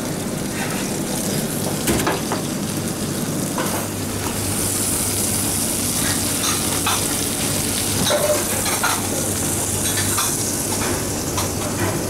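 Whole lemon sole sizzling in fat in a hot frying pan just out of the oven, the sizzle rising to a bright hiss about four and a half seconds in. Scattered clicks and scrapes of a metal fish slice against the pan, over a steady low hum.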